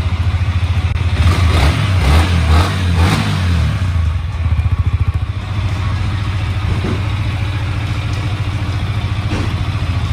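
Yamaha YZF-R125's single-cylinder four-stroke engine idling with a fast, even beat, revved briefly a few times in the first few seconds before settling back to a steady idle.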